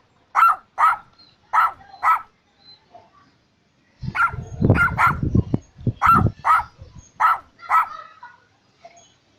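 Dog barking in short, high, sharp barks, many in quick pairs, during a dog-and-puppy play fight. A low rumbling scuffle runs under the barks from about four to six seconds in.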